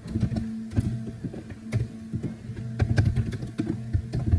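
Computer keyboard being typed on: irregular key clicks, several a second, over a steady low hum.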